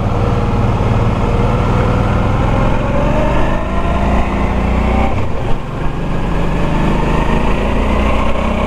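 Motorcycle engine running under load on the ride, its pitch climbing gradually for about five seconds, dipping briefly about five and a half seconds in, then running steadily.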